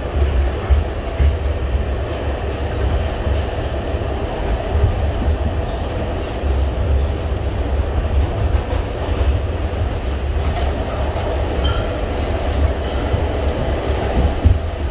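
New York City Subway D train running, heard from inside the car: a steady low rumble of wheels on rail, with a few clicks over rail joints.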